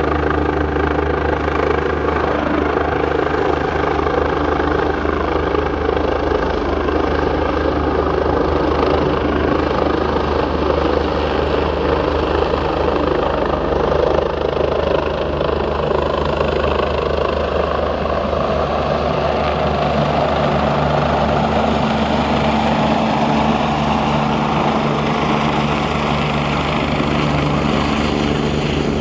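Helicopter flying low overhead and descending toward its landing spot, its rotor and turbine engines making a steady loud drone with low humming tones. A new steady tone comes in about two-thirds of the way through as it nears the ground.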